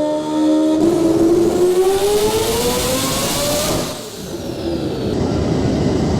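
Mazda RX-7's turbocharged rotary engine revving under load on a dyno, its pitch climbing steadily for about three seconds. About four seconds in it drops off briefly, then carries on loud and steady.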